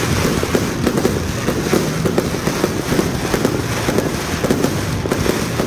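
Aerial fireworks display going off in a dense, continuous barrage: many rapid pops and crackles with no pause between them.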